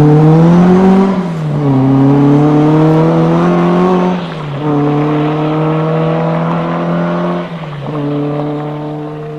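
Rally car engine accelerating hard through the gears. Its pitch climbs in each gear and drops sharply at three upshifts: about a second in, about four seconds in, and near the end. The note fades a little after the last shift.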